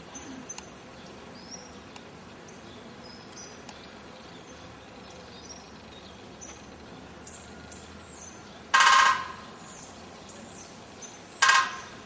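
Woodpecker drumming on a metal lamp: two short drumming rolls of about half a second each, the second about two and a half seconds after the first, each ringing with several tones. Small birds chirp faintly in the background.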